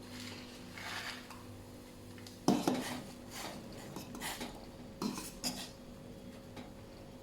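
Dishes and utensils clattering: a sharp knock about two and a half seconds in, then a few lighter clinks, over a steady low hum.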